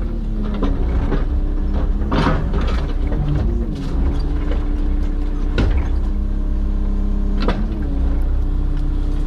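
Excavator engine running under hydraulic load, its pitch dipping and recovering as the machine works. There are sharp cracks or knocks about two, five and a half and seven and a half seconds in.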